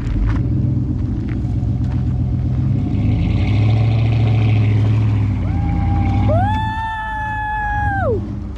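Off-road vehicle engine running under load with a heavy low rumble, most likely pulling on a recovery strap, getting louder in the middle. About five and a half seconds in, a high squealing whine with several overtones cuts in, holds for a couple of seconds, then slides down in pitch and stops near the end.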